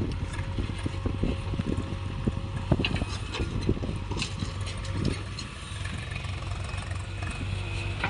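Diesel engine of a JCB 3DX backhoe loader running steadily as it digs and loads soil, with a few sharp clatters from the bucket and the soil it tips into a tractor trolley.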